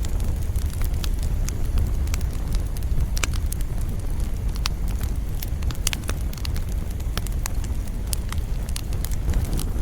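Campfire burning: a steady low rumble of flame with irregular sharp crackles and pops from the wood, several a second.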